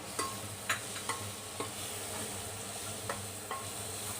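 Spice masala frying in mustard oil in a pressure cooker, a steady sizzle, while a spoon stirs it and taps against the pot about six times.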